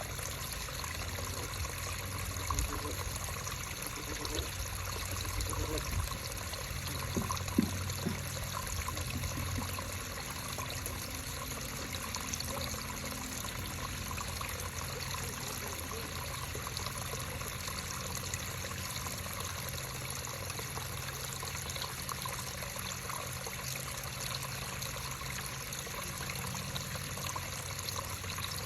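A creek running and trickling steadily, with a couple of short knocks in the first several seconds, the sharpest about seven seconds in.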